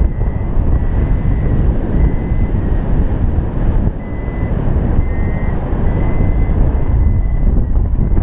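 Arduvario ESP32 paragliding variometer beeping in short, repeated high tones about once a second, the climb signal that the glider is rising in lift (above its +0.15 m/s beep threshold). Loud wind noise rushes over the microphone underneath.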